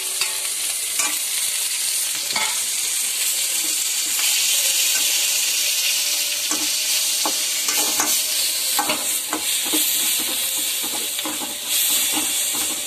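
Chopped tomatoes, onions and coriander leaves frying in a metal pan, sizzling steadily as a metal ladle stirs them. The ladle scrapes and clicks against the pan now and then.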